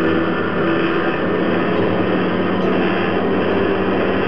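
Bench drill press running, a loud, steady machine noise with a faint hum in it.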